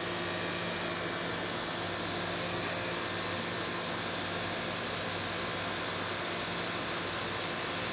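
Prototype electric pressure washer running under load: a steady hiss of water spraying, over a low, even hum from its induction motor and pump. The machine is drawing about 15 amps.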